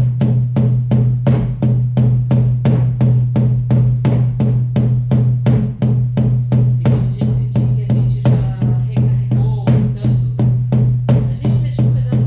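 Shamanic frame drums beaten in a steady, even rhythm of about three beats a second over a constant low hum.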